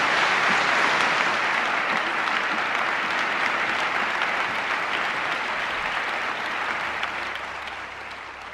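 Large audience applauding steadily, the clapping dying away near the end.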